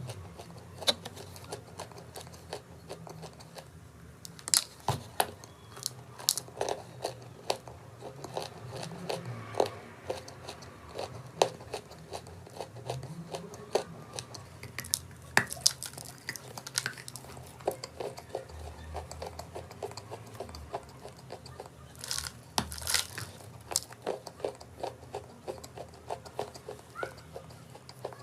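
Close-up biting and chewing of crunchy chalk: irregular sharp crunches and cracks, several a second, with a few louder snaps between them.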